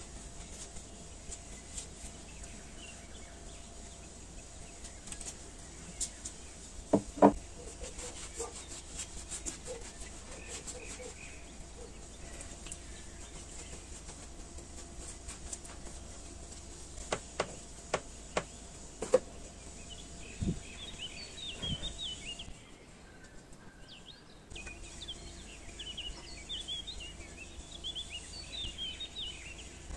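A silicone pastry brush dabs egg wash onto raw bread dough with soft brushing sounds and a few sharp clicks and taps, the loudest a double tap about seven seconds in and a cluster of clicks a little past the middle. Birds chirp faintly in the background in the second half.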